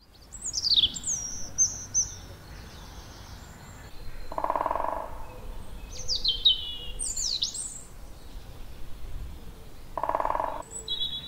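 Woodland birdsong: several birds singing high, clear whistled phrases that slide downward, in two main bouts. Twice, about four and a half and ten seconds in, a short harsh buzzy sound cuts in.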